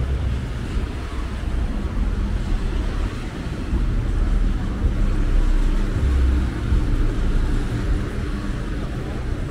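Steady low rumble of city street traffic, cars and engines running on the road alongside.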